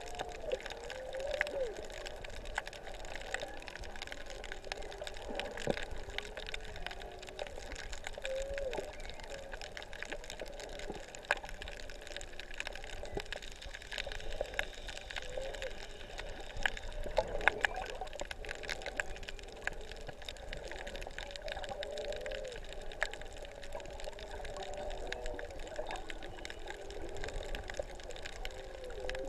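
Humpback whale song heard underwater: weird moaning calls that slide up and down in pitch, repeating every few seconds. A constant crackle of clicks runs under it from fish chewing on the reef, loudest in a dense cluster just past halfway.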